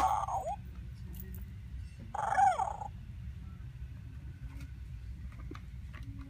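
FurReal Friends Pom Pom baby panda toy playing short electronic cub cries, one ending about half a second in and a louder one about two seconds in, over a steady low hum.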